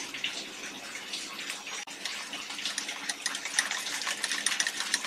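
Wire balloon whisk beating egg and rice-flour batter in a bowl: a wet swishing, with quick, regular clicks of the wires against the bowl that grow denser and a little louder about halfway through.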